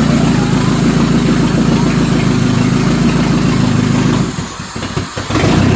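Toyota Camry demolition derby car's engine running steadily. About four seconds in its sound drops away for about a second, then comes back near the end.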